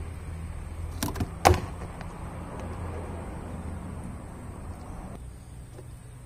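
A steady low mechanical hum, with two or three sharp knocks about a second to a second and a half in, the last the loudest.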